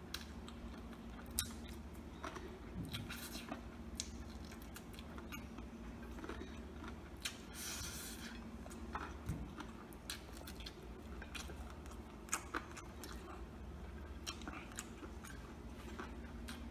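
Close-up mouth sounds of a man chewing and gnawing meat off a fried chicken drumstick bone: scattered small clicks, smacks and crunches, with a short hissing burst about eight seconds in.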